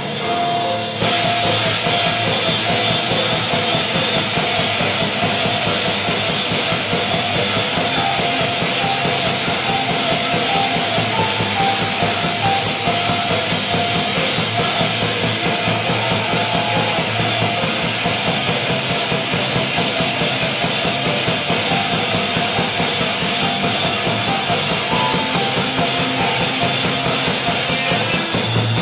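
Live rock band playing loud: electric guitar, bass and a drum kit, with the full band and drums coming in about a second in and then driving at a fast, steady beat.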